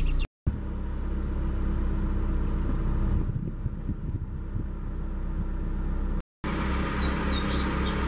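Steady low rumble of background noise that cuts out briefly twice. Near the end a double-collared seedeater (coleiro) sings a short phrase of quick, sweeping high whistles. Faint high ticks sound in the first few seconds.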